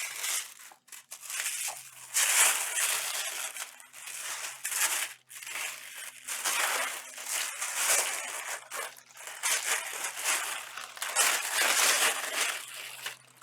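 Unboxing packaging being handled and pulled apart: crinkling, rustling and crushing in a run of uneven bursts.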